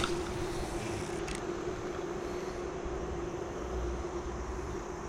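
A steady engine hum over outdoor background noise, with a faint click about a second in.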